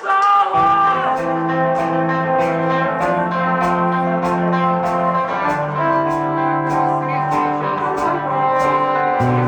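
Live band playing the slow opening of a love ballad: long held chords, with a bass line coming in about half a second in and a light, steady ticking beat on top.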